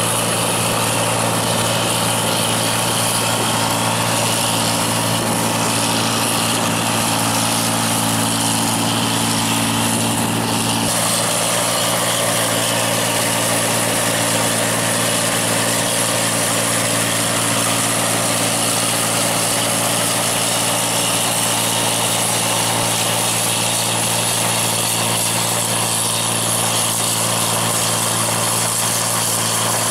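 Model 1545 crawler-track rice combine harvester working through standing paddy: a steady engine drone with the continuous rush of the cutter and threshing drum. Part of the engine hum thins slightly about eleven seconds in, otherwise unchanged.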